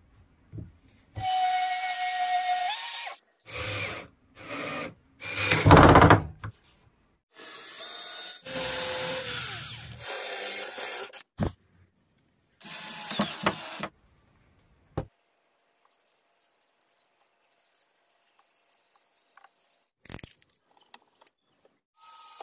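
Cordless drill run in repeated bursts of a few seconds each, first boring into a wooden block with a countersink bit and then driving a screw into it. The bursts stop a little over halfway through, and only faint ticks follow.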